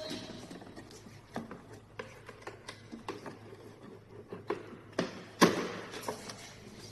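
Irregular small clicks, taps and knocks of parts and tools being handled during a steering-motor replacement, the loudest about five and a half seconds in.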